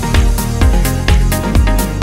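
Electronic dance music with a steady driving beat and a deep bass line.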